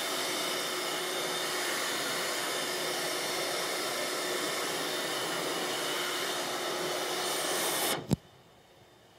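Dirt Devil vacuum cleaner running steadily, then cutting off with a sharp click about eight seconds in.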